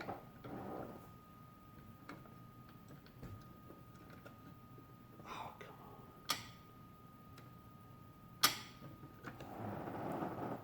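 Small clicks and taps of tiny parts and tools being handled during a toy bank repair, with two sharper clicks about six and eight and a half seconds in. A faint steady high tone runs underneath.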